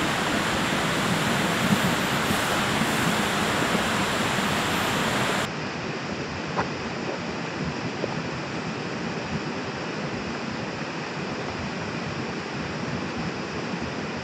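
Steady rushing noise of water. About five seconds in it changes abruptly to a quieter, duller rush, with a couple of faint clicks after it.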